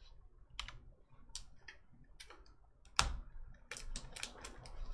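Trading cards being handled and set down, giving scattered light clicks and taps: one sharper tap about three seconds in, then a quick run of clicks near the end.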